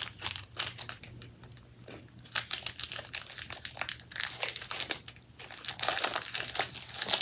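Plastic wrapper of a Snickers Pecan candy bar crinkling as it is torn open, a dense run of irregular crackles.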